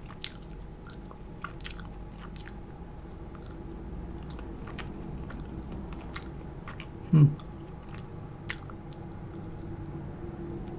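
A person chewing crispy fried chicken up close, with scattered small crunches of the breaded coating. A short low hum from the eater comes about seven seconds in.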